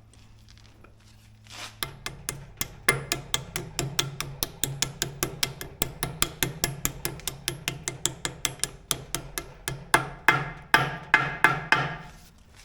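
Hammer tapping a steel pivot bushing into its bore on a skid steer's quick-attach, a long run of quick, even strikes with a metallic ring, about four a second, starting about a second and a half in.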